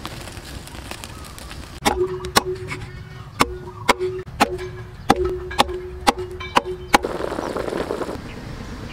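A cleaver chopping on a cutting board: about a dozen sharp chops, roughly two a second, with a ringing tone between them. Near the end, a pot of braise bubbles.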